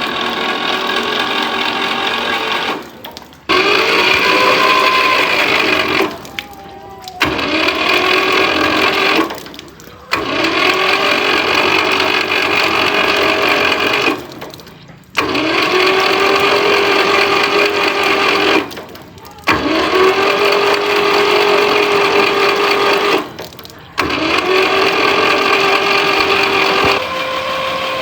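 Small electric motor, like a power tool's, spinning up and running in repeated bursts of a few seconds, stopping sharply between them, about seven times.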